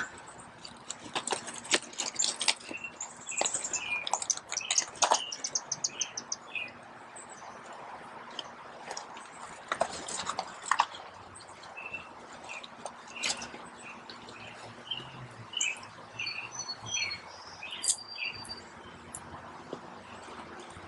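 Wild birds chirping and singing in quick runs of high notes, over irregular crunches of footsteps on a river-rock gravel path; the crunches are the loudest sounds.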